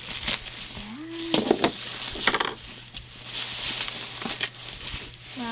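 Plastic parcel packaging rustling and crinkling as it is opened by hand, with scattered clicks and short bursts of tearing, and a brief hum from a voice about a second in.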